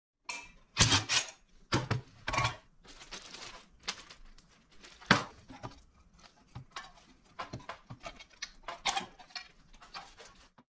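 Irregular clicks, knocks and clatter of hands handling parts on a sheet-metal workbench while the plastic recoil starter housing is worked off a Predator 212 engine.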